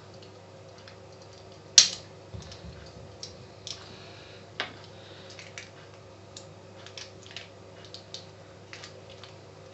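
Small clicks and taps of a disassembled Mikma 115 electric shaver's plastic parts and circuit board being handled and pulled apart, with one sharper click about two seconds in. A faint steady hum runs underneath.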